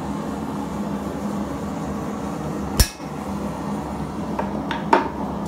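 Hammer striking a hand punch on hot steel on an anvil: one sharp, ringing blow about halfway through, then two lighter taps near the end. A steady background roar runs underneath.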